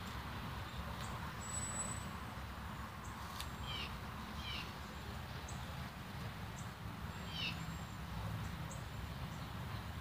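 A few short bird chirps, each a quick falling note, about three and a half, four and a half and seven and a half seconds in, over a steady low background rumble.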